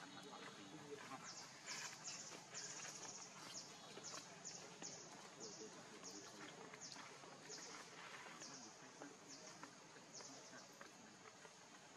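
Quiet forest ambience with a short, high chirp repeating irregularly, about one to two times a second, coming more slowly in the second half.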